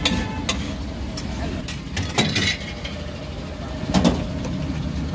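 Steel pav bhaji masher knocking and scraping on a large flat metal tawa as the bhaji is mashed, several short clanks with the loudest pair about four seconds in. A steady low rumble of traffic runs beneath.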